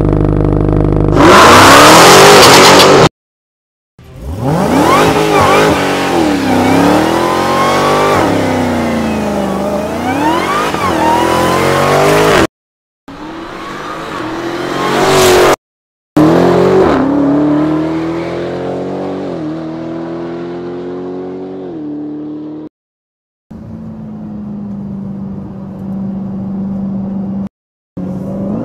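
2018 Dodge Challenger SRT Demon's supercharged 6.2-litre V8 in a string of short clips separated by brief silent cuts: a very loud full-throttle burst about a second in, then revving with the pitch sweeping up and down again and again, and a steadier, quieter drone near the end.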